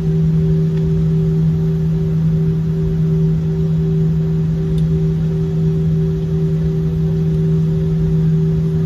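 Steady cabin hum of an airliner taxiing: a strong low drone with a fainter, higher hum above it over a low rumble, unchanging throughout.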